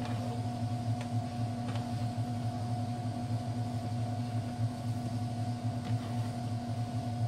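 A steady low machine hum with a few fixed tones, with a few faint soft taps as hands knead pastry dough on the counter.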